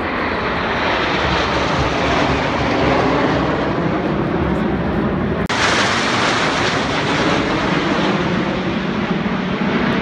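Formations of military aerobatic jets flying low overhead with a steady, loud jet roar. About five and a half seconds in the sound switches abruptly to a second flyover with a brighter, hissier roar, the Snowbirds' CT-114 Tutor jets.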